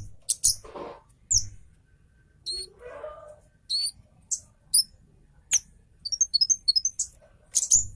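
Orange-headed thrush singing in a fast, dense burst: sharp, high, clipped whistled notes fired off one after another, with quick trilled runs near the start and again about six seconds in.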